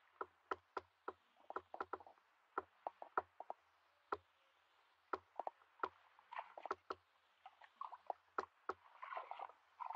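Hands and bare feet splashing and squelching in a shallow muddy pool while groping for fish: an irregular run of small slaps and plops, about three a second, with short bouts of sloshing water a little past the middle and near the end.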